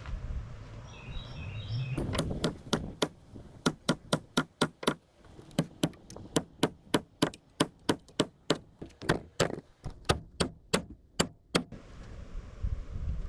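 A hammer striking repeatedly in a steady rhythm of about three sharp blows a second, starting about two seconds in and stopping shortly before the end.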